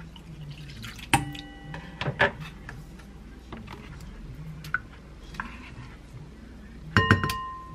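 Kitchen utensils clinking against a large glass mixing bowl while a marinade is mixed. There is a clink that rings on about a second in, a few knocks and light taps as a wooden spoon stirs, and near the end a quick run of ringing clinks as a small stainless-steel bowl of minced garlic is tipped in.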